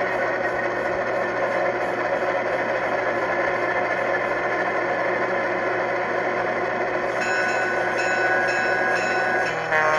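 Sound-decoder recreation of an EMD E8A diesel, its twin 12-cylinder 567 engines running steadily, played by a LokSound 5 decoder through a small Tang Band W1-2361S speaker in a model locomotive. About seven seconds in, the locomotive bell starts ringing, and the horn begins to blow just before the end.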